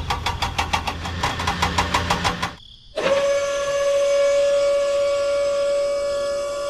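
Rapid, even clicking over a low hum, which breaks off about two and a half seconds in. Half a second later a small DC motor starts up in a steady whine, driving a toy crane's geared winch that lowers its load.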